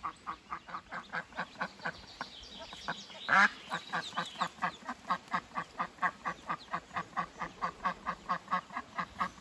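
Mother duck giving a steady run of short, soft quacks, about four or five a second, the contact call a hen keeps up to hold her newly hatched ducklings together. One louder call comes a little over three seconds in.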